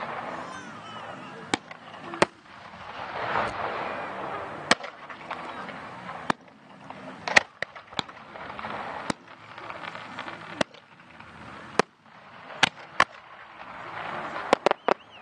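Fireworks shells bursting in an irregular series of about a dozen sharp bangs, with a hissing, crackling haze between the reports.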